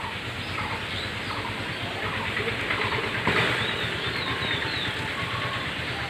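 Steady rushing background noise with short, high chirps of small birds scattered through it, a little louder just past the middle.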